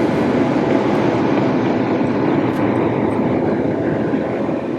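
Steady, loud road and engine noise from a moving vehicle.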